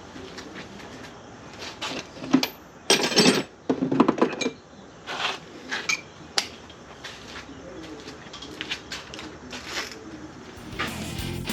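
Clinks and clatters of tools and parts being handled during an ignition coil and spark plug change, in irregular bursts with the loudest about three to four seconds in. Guitar music comes in near the end.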